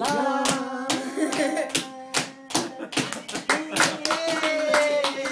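Hands clapping in a steady rhythm, about two claps a second, along with a child singing long held notes.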